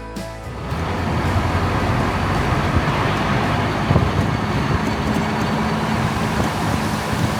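A truck running with steady engine and road noise, taking over as guitar music fades out in the first second. A faint steady hum joins about halfway through.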